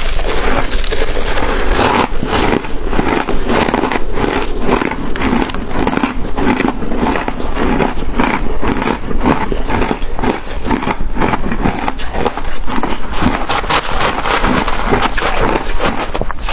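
Shaved ice being bitten and chewed close to the microphone: a dense, continuous run of crisp crunches and crackles.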